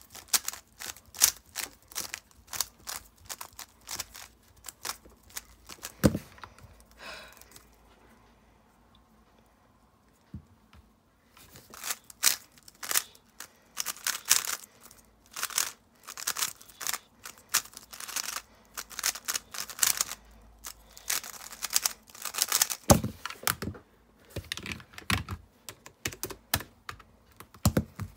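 Plastic 3x3 speedcube being turned by hand: quick runs of clicking turns, with a pause of a few seconds about a third of the way in.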